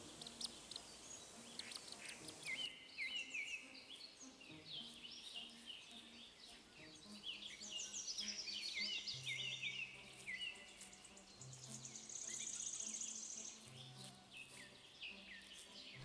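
Faint songbird chorus: many short chirps and repeated falling notes, with a high rapid trill about three-quarters of the way through. Soft background music with low held notes runs underneath.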